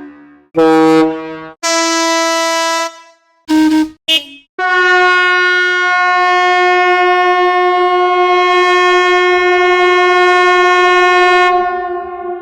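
A run of horn sound effects: three short horn blasts in the first four seconds, then one long steady horn note held for about seven seconds that fades out near the end.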